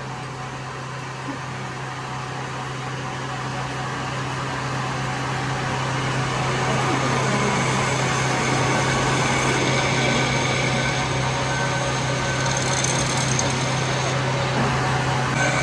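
A steady low engine hum with road traffic noise that swells gradually louder over the first ten seconds or so, then holds.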